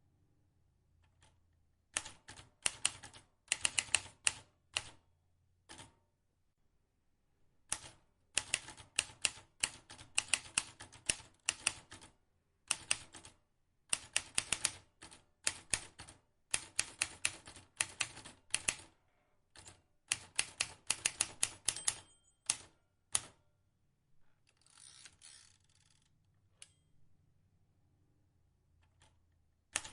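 Vintage manual typewriter being typed on: runs of rapid, sharp key strikes broken by short pauses. A brief scraping noise follows about two-thirds of the way through, then a lull near the end.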